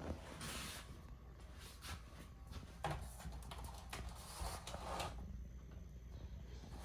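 Faint scattered knocks and rustles over a low steady hum.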